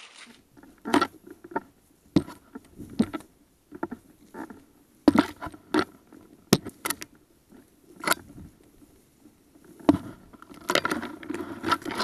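Brush and dry leaves scraping, rustling and snapping against clothing as a person pushes on foot through dense woodland undergrowth, with footsteps in leaf litter: an irregular run of sharp scrapes and crackles.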